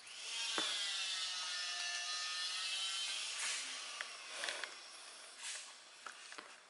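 A pet's long, drawn-out cry over the first three seconds, rising and then falling in pitch, made while a dog and a cat crowd a hand-held treat. It is followed by a few sharp crunching clicks of the treat being bitten and chewed.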